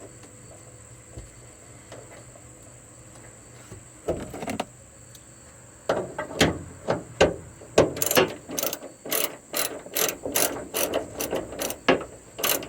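Ratchet wrench clicking in short strokes as it backs out a factory M6 bolt. A brief burst comes about four seconds in, then the clicking starts about six seconds in and quickens to about three clicks a second near the end.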